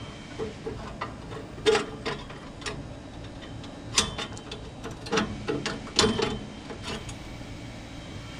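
Steel Flavorizer bar being fitted into a Weber Genesis gas grill: scattered metal clinks and light taps, with a few louder knocks about two, four, five and six seconds in.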